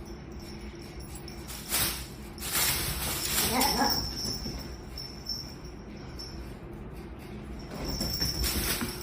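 A pet's short rising cry about three and a half seconds in, amid rustling noise.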